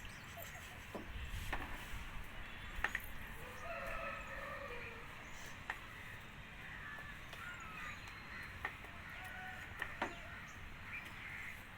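Faint bird calls in the background, with a few short clicks and taps scattered through.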